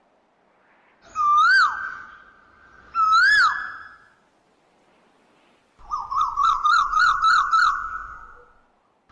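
Asian koel calling: two loud calls, each rising then dropping sharply in pitch, then about three seconds later a quick run of about eight short notes.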